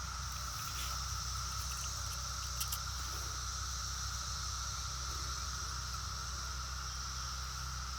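Chorus of periodical (17-year) cicadas: a steady, unbroken drone at two pitches, one mid and one high, over a low background rumble.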